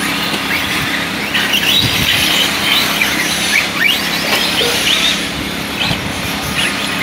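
Several 1/8-scale electric RC buggies running on a dirt track, their brushless motors whining in short rising and falling sweeps as they accelerate and brake, over a steady low hum.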